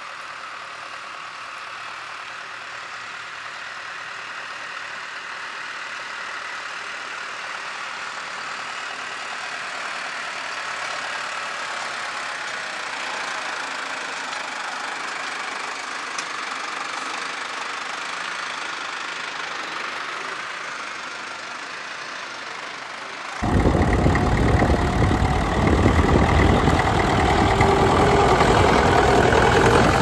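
Case IH tractor's diesel engine working steadily as it pulls a mounted reversible plough, slowly growing louder. About 23 seconds in, the sound cuts abruptly to a vintage International tractor's engine running close by, much louder and fuller.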